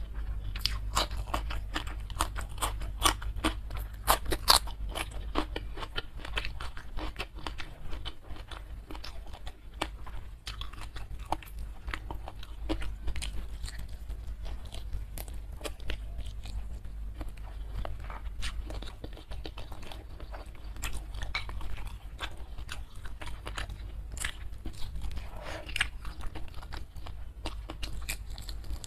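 Close-miked eating: crisp crunches from biting and chewing a raw green bean, loudest in the first few seconds, then steady chewing and biting of a smashed fried chicken wing, full of small sharp crunchy clicks.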